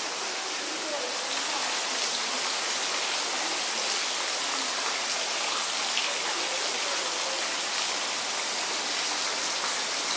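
Small fountain jet splashing steadily into a pond, a constant hiss of falling water.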